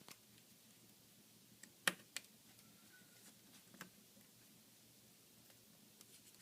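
A few isolated clicks and taps from plastic laptop parts being handled while the display cable is worked free, the loudest about two seconds in, over near silence.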